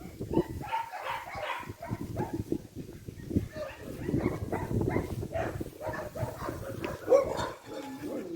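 Dogs barking and vocalizing in a run of short barks and yelps.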